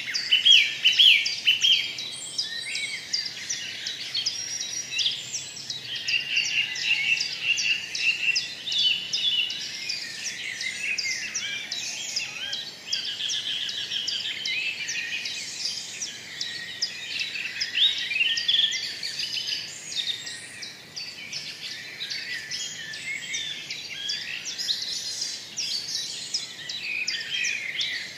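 Many small birds chirping together in a dense, unbroken chorus of short, high calls.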